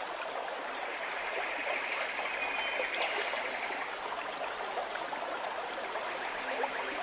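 Steady rustling, hissing outdoor noise, with a run of short high chirps in the last two seconds.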